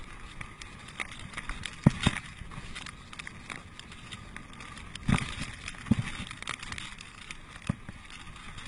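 Mountain bike rolling fast over a dirt trail: steady tyre and riding noise, with a few sharp knocks and rattles as the bike hits bumps, two of them louder, about two seconds in and about five seconds in.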